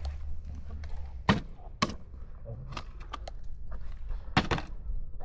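Scattered sharp knocks and clicks at irregular spacing, the loudest about a second in and again near the end, over a low rumble that fades early.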